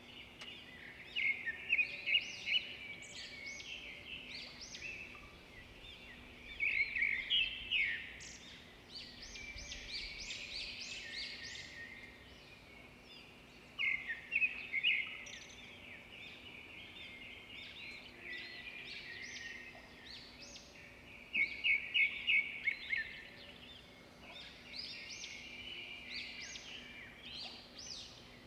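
Small birds chirping and singing in bursts of quick, high notes with short pauses between them.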